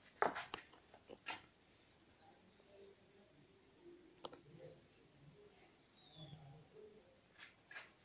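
Small bird chirping in short, high notes repeated about twice a second, with a few sharp clicks, the loudest near the start and near the end.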